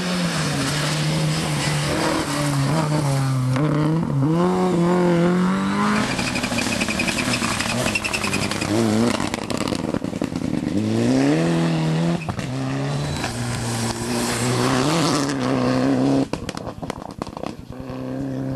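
Rally cars driven flat out past the roadside, one after another. Each engine revs up and drops back in pitch again and again through gear changes and lifts for the corners. Near the end there is a rattle of sharp clicks.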